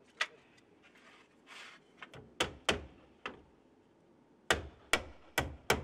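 Shingler's hatchet hammering nails through larch wood roof shingles into the battens: sharp strikes in short runs, ending with four quick blows. A brief rustle of shingles being shifted comes between the strikes.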